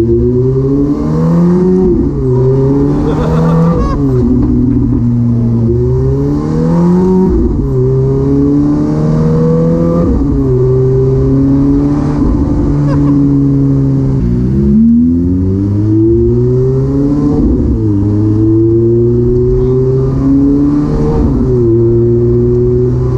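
Ferrari F430 Spyder's naturally aspirated V8 on a catless aftermarket exhaust, heard from the open-top cabin while driving: its high-pitched note climbs again and again under throttle, each climb cut by a sudden drop in pitch at a gear change, every few seconds.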